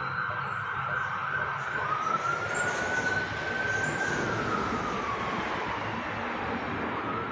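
Emergency vehicle siren wailing, its pitch rising slowly, then falling, then rising again near the end, over a steady hiss of road traffic.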